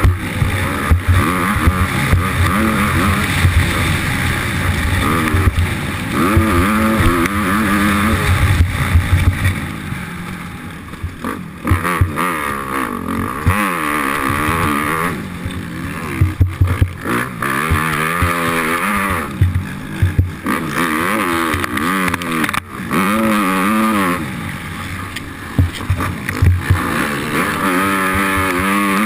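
Motocross bike engine heard close up on board, revving up and dropping off again and again as the rider accelerates, shifts and rolls off the throttle. Gusty wind rumble on the microphone runs under the engine.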